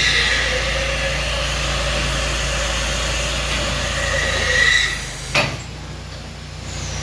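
FEMCO Kafo VMC-21100 CNC vertical machining center running: a steady whine with hiss over a low machine hum, which cuts off about five seconds in, followed by a single sharp clunk.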